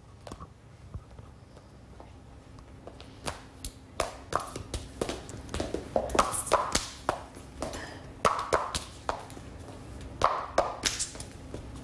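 Irregular taps and thuds of feet and hands on the floor as a contortionist runs her body around itself in a body revolution. The taps are sparse at first and come about two a second from around three seconds in.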